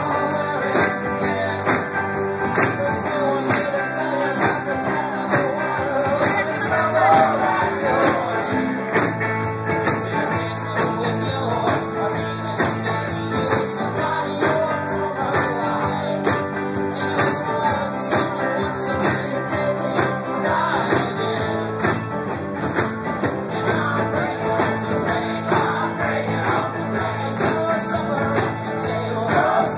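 A live rock band playing a song at full volume: electric guitars, a drum kit and lead vocals over a steady beat.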